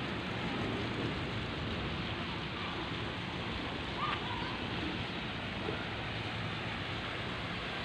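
Steady rushing wind noise on the phone's microphone outdoors, even throughout with no distinct events.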